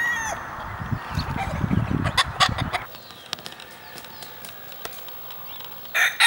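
Rooster crowing: the tail of one crow fades right at the start, and a loud new crow begins about six seconds in. In between there is a low rumble for a couple of seconds with a few sharp clicks.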